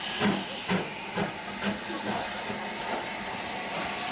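Stanier 8F steam locomotive No. 48773 hissing steadily as steam escapes. Over the first two seconds a series of soft beats comes about twice a second and fades out.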